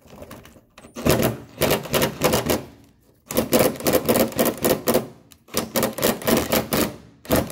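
Hand ratchet clicking in rapid runs as it is worked back and forth on a rusted-in nut and bolt on a fuel-tank strap, trying to break it loose. About four bursts of fast clicking with short pauses between strokes.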